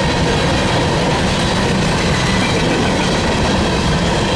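Freight train cars rolling past close by: a loud, steady rumble of wheels on rail with a clickety-clack undertone.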